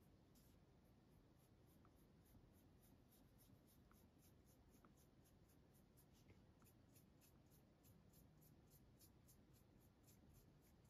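Very faint, quick strokes of a shimmer brush pen's tip on paper, about four strokes a second.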